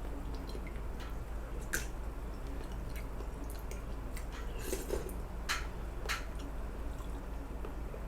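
A person eating soup with chicken and rice: wet chewing and mouth sounds with scattered sharp little clicks, a few louder ones, over a steady low hum.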